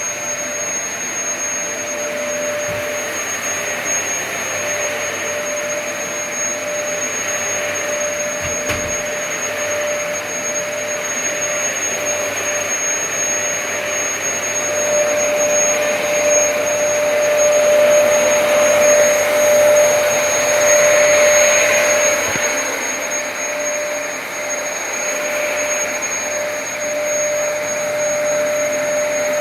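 Dyson DC33 Multi-Floor upright vacuum cleaner running steadily, a motor whine over a rush of air. It grows a little louder for several seconds past the middle, then settles.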